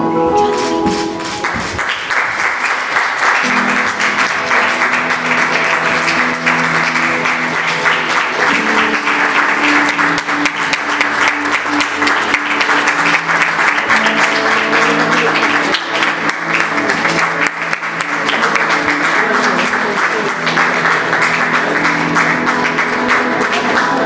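Audience applauding, starting about a second and a half in and going on steadily, over background music with held notes.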